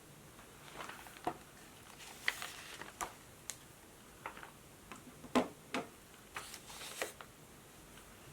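Irregular light clicks and taps with a few brief scratchy strokes, the sounds of desk work with a laptop and a notebook, spaced unevenly with short pauses between.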